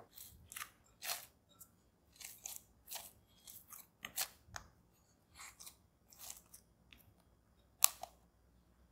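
Hands kneading sticky bread dough in a glass bowl: irregular soft squelches and slaps of dough against the glass, a few a second, with one louder knock near the end.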